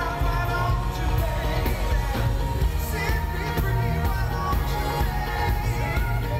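Live pop music: a male vocal harmony group singing over a backing band with drums and bass, heard from the audience.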